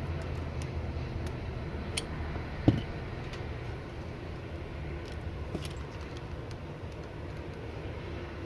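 Light clicks and taps of small parts and tools being handled, with one sharper knock nearly three seconds in, over a steady low background hum.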